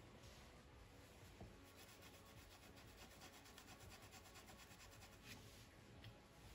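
Faint rubbing of a small flat paintbrush working paint onto fabric, in near silence.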